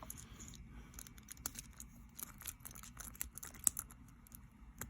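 Jiggler key being worked in the keyway of a Bunker Hill Security 40 mm padlock: faint, irregular small metallic clicks and rattles, with a few sharper ticks.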